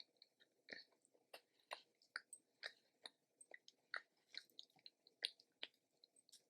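A person chewing food close to the microphone: faint, quick, wet mouth clicks and smacks, two or three a second.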